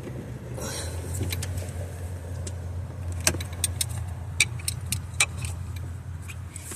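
Steady low hum of a vehicle engine running nearby, with a string of sharp, irregular metallic clicks from a hand ratchet and socket being worked on a starter mounting bolt.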